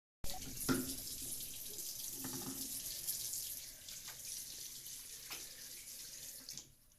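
Tap water running into a sink: a steady rush of water that starts suddenly and cuts off near the end, with a few light knocks.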